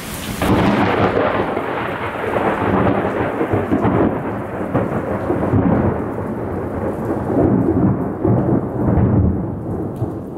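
Thunder from a nearby lightning strike rumbling for about ten seconds. It comes in suddenly, swells several times, then cuts off abruptly.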